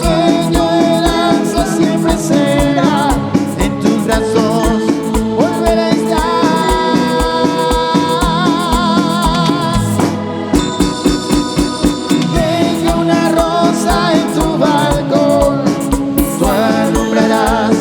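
Music with singing over a steady, regular beat.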